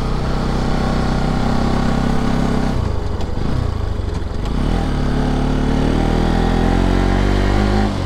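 Motorcycle engine running under way on the road. Its note falls away about three seconds in, then comes back and climbs steadily as the bike accelerates.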